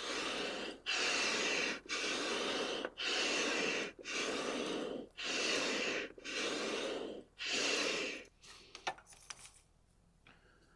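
Old camping air pump worked by hand, eight rhythmic whooshing strokes about a second apart, blowing air through a drilled iron pipe into the charcoal of an improvised brick forge to get the fire going. The strokes stop about eight seconds in.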